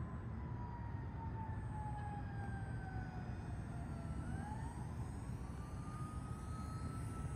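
Propeller whine of a twin-prop radio-controlled model E-2D Hawkeye flying a low turn. The pitch falls slowly for about four seconds, then jumps up and rises slowly as the motors are throttled up. A steady low rumble lies underneath.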